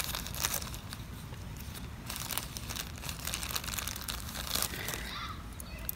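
Crinkling, rustling handling noise with many small irregular clicks, from small jewelry pieces and what holds them being moved about by hand.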